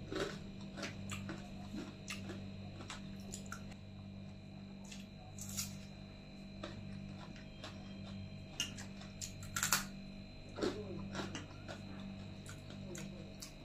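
Quiet eating by hand: chewing, with fingers squelching through watery soured rice (panta bhat) in a steel bowl. There are scattered small clicks and taps, the strongest about halfway and again about two-thirds through, over a steady low hum.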